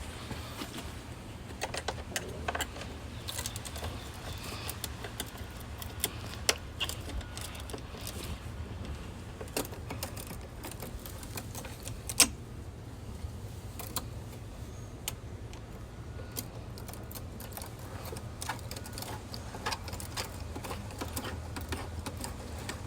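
Scattered small clicks, taps and rattles of hand tools and plastic parts as a pool heater temperature sensor is worked loose and removed, over a steady low hum. One sharper knock comes about twelve seconds in.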